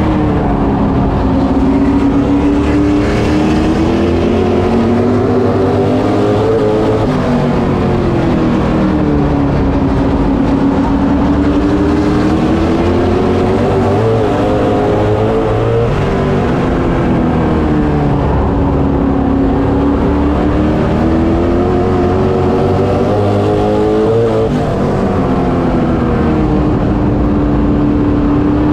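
Street stock race car's engine heard from inside the cockpit at racing speed, its revs climbing on each straight and falling off for each turn, about every eight to nine seconds, lap after lap.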